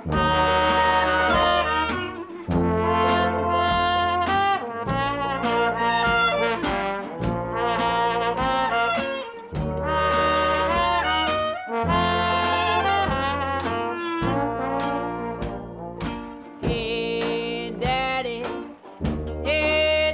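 Background music with brass instruments playing melodic phrases over a steady bass line.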